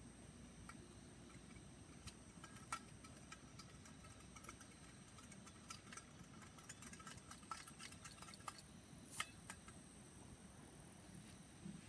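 Faint, irregular small clicks and light ticks over a quiet background, scattered through the middle, with two sharper clicks standing out.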